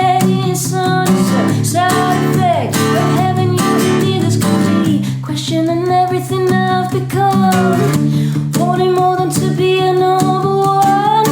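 A woman singing long held notes over a strummed acoustic guitar.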